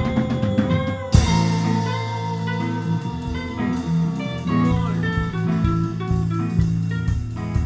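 Live band playing an instrumental passage on drum kit, electric guitar and keyboard, with a cymbal crash about a second in over held chords and a melodic guitar line.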